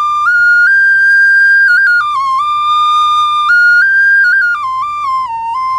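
A small Native American flute playing a slow, high melody: held notes that step up and down, with quick grace-note flicks between some of them, settling lower near the end.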